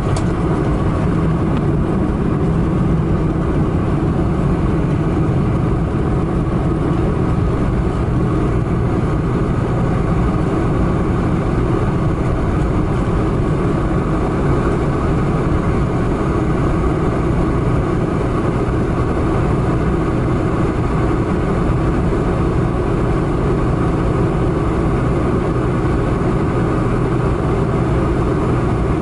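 Boeing 747-400 jet engines and airframe running steadily, heard inside the cabin by the wing, as the airliner rolls along the ground after landing. An even rumble and hiss with a faint steady hum, with no change in power.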